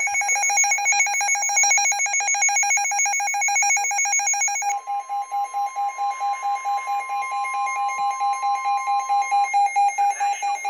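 Midland NOAA weather radio sounding its alert alarm for a severe thunderstorm warning: a loud, high, rapidly pulsing beep. About halfway through the pulses slow to a few a second, and a steady higher warning tone plays under them for about five seconds, then stops.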